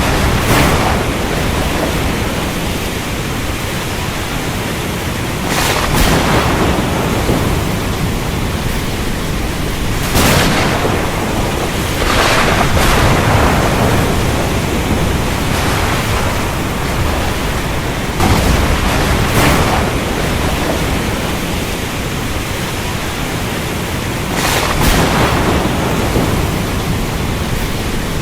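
Steady heavy rain with thunder, sharp claps and rumbles breaking through every few seconds, about seven times.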